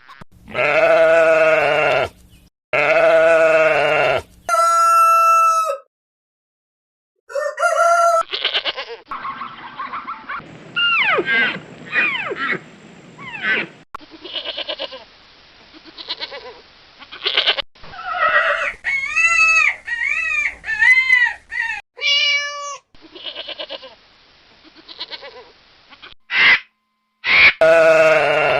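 A run of separate farm animal recordings cut one after another: goats bleating, two long bleats at the start and another near the end, with chicken calls and other shorter, higher calls between. About a second of silence comes roughly six seconds in.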